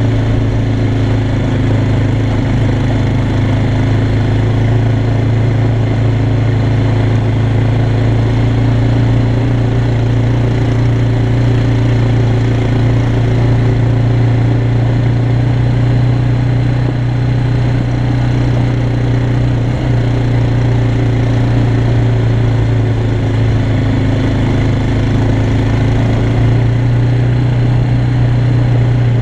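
Yamaha Bear Tracker 250 quad's single-cylinder four-stroke engine running steadily, pulling the quad uphill along a gravel track at an even pace.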